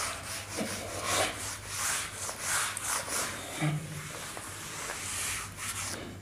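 Handheld eraser wiping a whiteboard, rubbed across the board in a series of brushing strokes that stop near the end.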